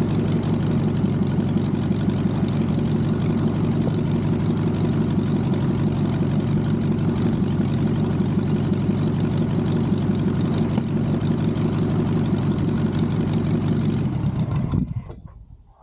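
Single-port 1600 cc VW aircraft conversion engine, with twin Solex carburettors and magneto ignition, running steadily and turning the propeller on its first run after a rebuild and years of storage. It cuts out near the end and winds down to a stop within about a second.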